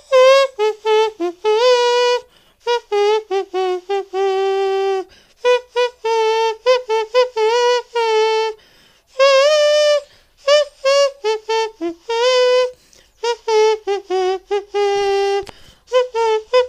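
A man imitating a trumpet with his voice, playing a melody of short detached notes and longer held notes, some with a wavering vibrato.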